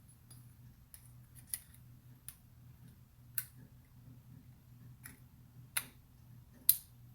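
Small metal parts of a shotgun trigger assembly and hand tools clicking and tapping as it is fitted together by hand: about seven sharp, separate clicks, the loudest near the end, over a low steady hum.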